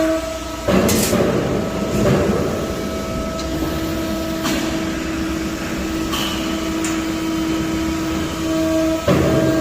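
CNC press brake bending 1.5 mm sheet metal: a steady machine hum, with louder noisy surges of the machine working about a second in and again near the end, and scattered clicks and knocks between them.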